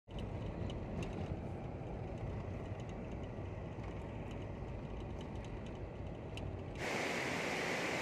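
Low, steady rumble of a car driving along a road, with occasional faint clicks. Near the end it cuts abruptly to the louder, even rush of a fast mountain river over rocks.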